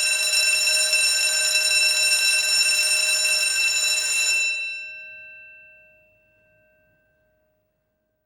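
Electric school bell ringing steadily, then stopping about four and a half seconds in, its gong ringing on and fading away over the next two seconds or so.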